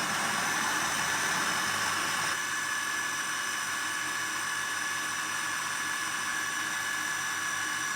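Electric blender motor running steadily with a high whine, whizzing a thick peanut butter hummus mix, then starting to spin down at the very end.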